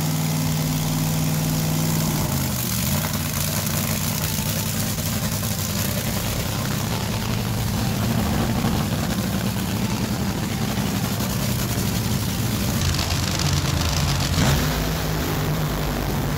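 Nitro-burning top fuel drag racing engine running loud, starting on a steady low note that shifts in pitch about two to three seconds in, with a harsh noisy edge throughout.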